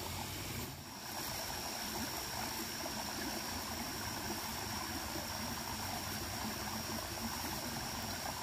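Small stream running steadily, water trickling over stones in a shallow cascade, with a thin steady high whine above it.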